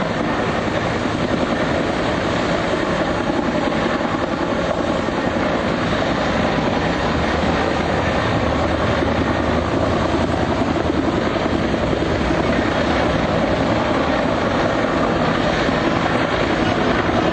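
Coast guard rescue helicopter hovering during a sea rescue: a steady drone of rotor and engine, growing slightly louder near the end.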